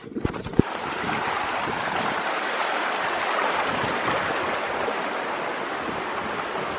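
Shallow mountain stream running over stones: a steady rushing. A few low knocks come in the first half-second.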